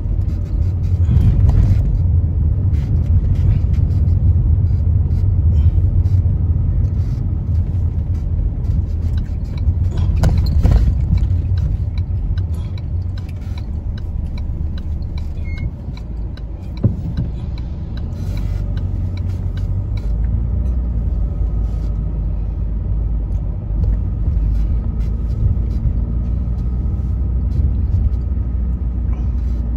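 Steady low road and engine rumble inside a moving car's cabin, with a few short knocks and rattles, the sharpest about seventeen seconds in.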